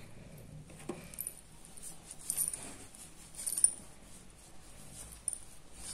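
Soft rubbing and rustling as cream is wiped off the back of a hand with a tissue, with a few brief crisp, high rustles or clinks about two and three and a half seconds in.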